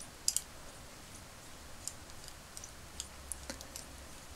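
Faint, irregular little clicks and ticks of a hand-turned pin vise as its tiny drill bit is twisted into the hard plastic of an action figure's broken thumb.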